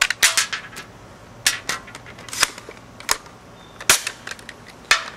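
Sharp clicks and clacks from a UHC Super 9 Pro spring airsoft sniper rifle being handled: a quick run of clicks at the start, then single clacks about once a second.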